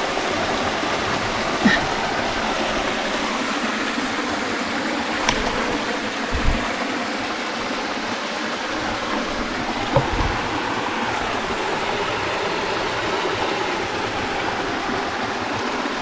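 Shallow stream running steadily close by, an even rushing noise, with a few brief knocks from handling nearby.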